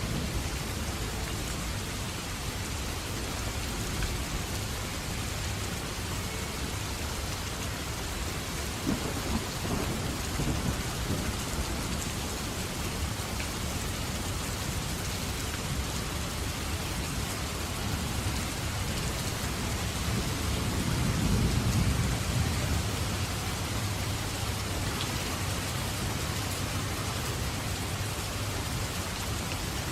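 Steady rain falling, with thunder rumbling low underneath; a longer roll of thunder swells up about two-thirds of the way through and is the loudest moment.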